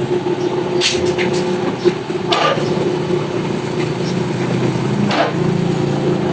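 Electric pump motor of a hydraulic car lift running steadily as it raises the car, with a few sharp metallic clanks.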